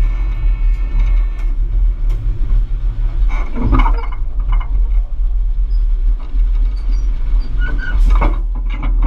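Diesel locomotive 801's engine running with a steady low rumble, with two louder knocks about four and eight seconds in.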